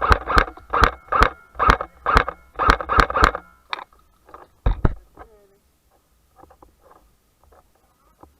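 Airsoft rifle firing a quick string of about ten semi-automatic shots, two to three a second, followed by two more single shots, the last one heavier; after that only faint scattered clicks.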